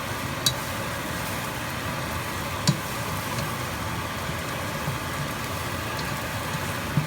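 Steady hiss of a pan of onion-tomato masala frying on low heat, with two sharp clicks of a utensil against the pan.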